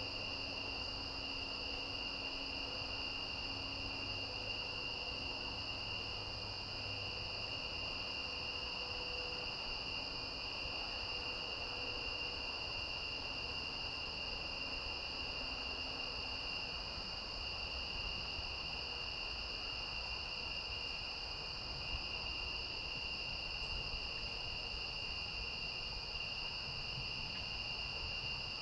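Steady, unbroken chorus of crickets, a high continuous trill with no pauses.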